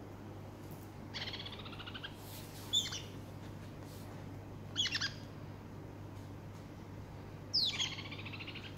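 Small yellow pet parrots calling in short separate calls: a call about a second long starting about a second in, a sharp chirp, a quick double call around the middle, and a call near the end that starts high and slides down.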